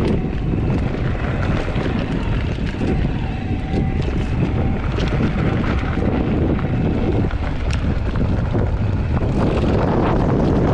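Steady wind noise buffeting the microphone of a camera carried on a bicycle ride, with a few faint clicks.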